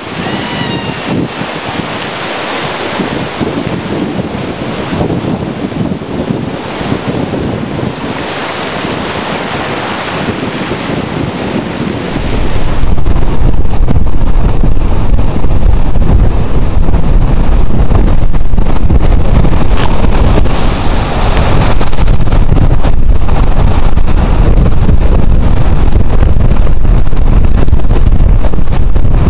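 Hurricane surf rushing and breaking under strong wind, then about twelve seconds in, hurricane-force wind hitting the microphone in a much louder, constant low rumble that buries everything else.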